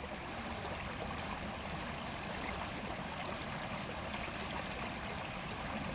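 Shallow stream running over rocks: a steady rushing of water.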